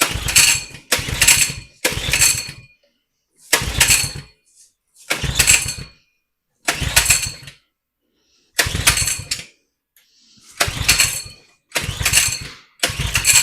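Coleman 100cc minibike's small single-cylinder engine being pull-started over and over, about ten short cranking pulls each a second or two apart, never catching. It is being cranked on a squirt of brake cleaner into the intake.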